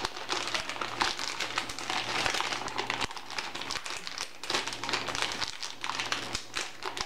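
Plastic piping bag being handled, crinkling and rustling with many small irregular crackles.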